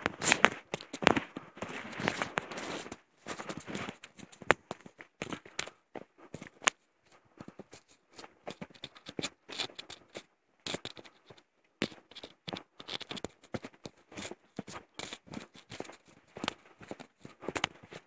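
Footsteps on a leaf- and twig-strewn dirt forest trail, crackling and scraping irregularly, with brief lulls about three, eight and ten seconds in.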